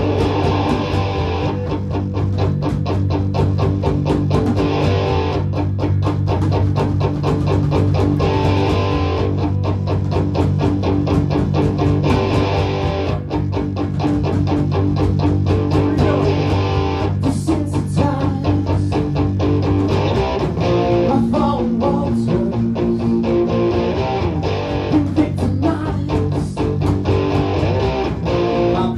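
A rock band playing live: electric guitar, electric bass and a drum kit, loud and steady, with no singing. The riff changes about two-thirds of the way through.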